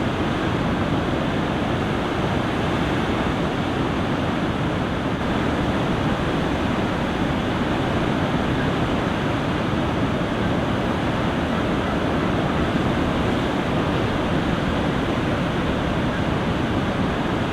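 Steady rushing of High Falls, the Genesee River's waterfall, an even, unbroken water noise.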